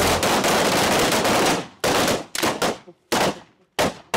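A line of rifles firing together in a rapid, overlapping volley for about a second and a half, which thins to a handful of separate single shots, each followed by a short echo.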